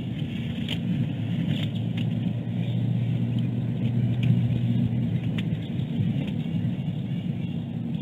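Steady low outdoor rumble picked up by a nest-camera microphone, with a few faint short clicks.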